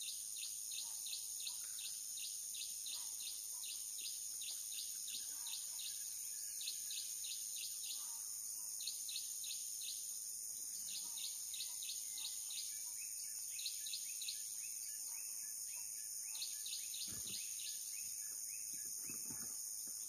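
Insect chorus: a steady high-pitched drone with a rapid, repeated chirping at about four pulses a second that breaks off now and then. A few faint knocks near the end.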